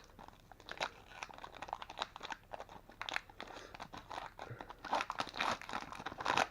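A trading card pack's wrapper being torn open and crinkled by hand, with irregular crackles that bunch up in a few quick spells, the busiest near the end.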